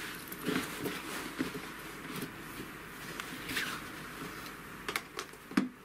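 Hands rustling and smoothing a knitted vest spread on a fabric-covered ironing board, with a couple of light knocks near the end.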